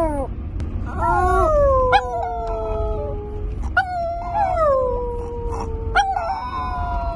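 Chihuahua howling: several long howls, each sliding down in pitch, over the low rumble of a car cabin on the road.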